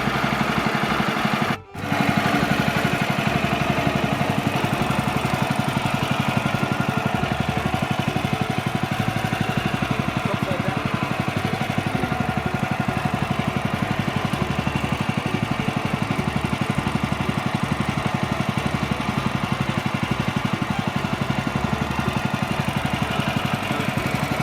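Small single-cylinder petrol engine of a Woodland Mills HM130MAX portable bandsaw mill running steadily at idle, not cutting. The sound drops out for a split second just under two seconds in.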